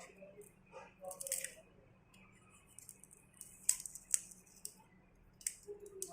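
Hand tools working at a firmly glued part inside a smartphone being pried apart: soft scraping about a second in, then a few sharp, short clicks in the second half.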